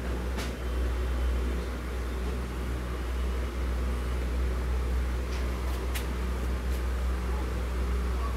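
Steady low hum with an even background hiss, and a few faint ticks of a marker drawing on a whiteboard.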